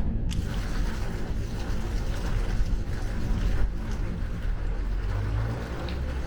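Steady road and rain noise inside a Mazda3 at expressway speed in a downpour, let in through a slightly opened window: a low rumble of tyres on the flooded road under the hiss of rain and spray, with a few faint drops ticking.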